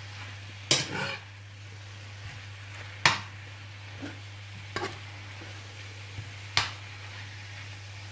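A metal spoon stirring sliced courgettes in a frying pan, clacking against the pan about five times, the loudest about three seconds in. Under it is a faint sizzle as the courgettes cook down and their water evaporates.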